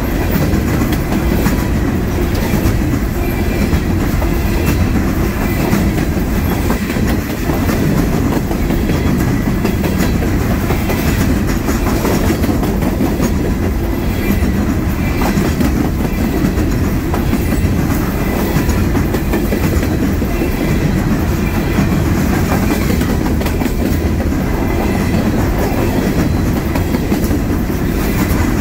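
Loaded-train freight cars of a Norfolk Southern coal train rolling steadily past, steel wheels on the rails with a continuous rumble and clickety-clack over the rail joints.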